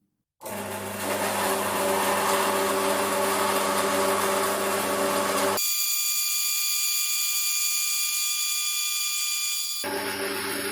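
Small Hafco Metal Master metal-cutting bandsaw running and cutting through a 50 mm steel flat bar, a loud steady hum with several steady tones, starting about half a second in. Midway the low hum drops out abruptly for about four seconds, leaving only high steady tones, then returns.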